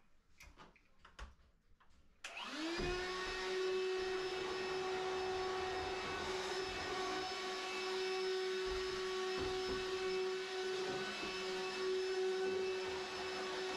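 An electric motor switches on about two seconds in, spins up quickly and runs steadily with a constant whine over a hiss, like a vacuum-type machine.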